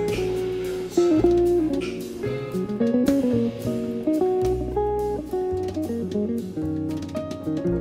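Background music: a plucked guitar melody moving from note to note over sustained low bass notes.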